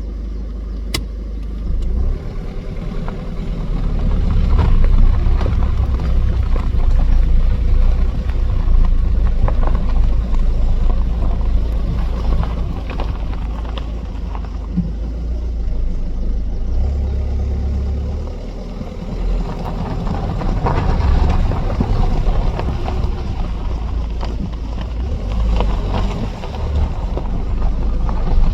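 Car running: a steady low rumble.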